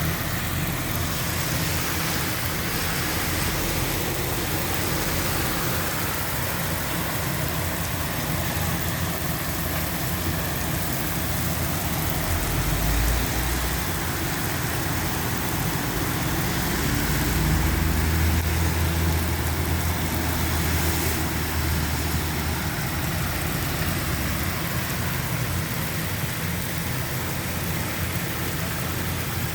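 Steady rain with a low rumble underneath that swells twice, about halfway through and again a few seconds later.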